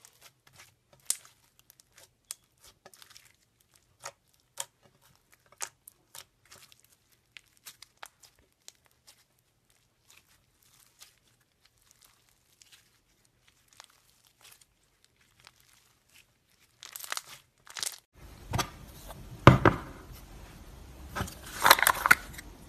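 Orange slime packed with foam beads being squeezed and kneaded by hand, giving scattered sharp crunchy pops and crackles that thin out after the first half. Near the end, louder knocks and rustling from handling a plastic jar of clear slime.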